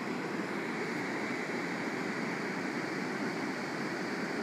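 Steady rush of fast-flowing creek water below a dam, an even hiss with no separate splashes or clicks.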